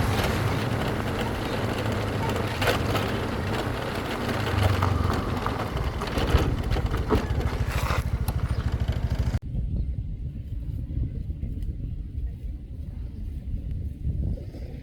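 Motorcycle running on the road with wind rushing over the microphone, a steady low engine hum under the noise. About nine seconds in the sound cuts off suddenly to a quieter low engine rumble.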